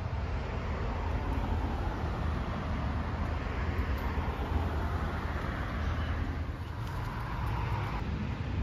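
Distant road traffic: a steady hum with a low rumble, its hiss growing louder in the second half and dropping off sharply near the end.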